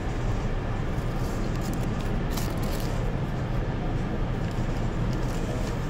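Steady low rumble of a Kobe City Subway Seishin-Yamate Line train heard from inside the car.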